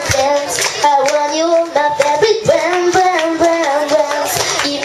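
A young girl singing a melody into a microphone over backing music.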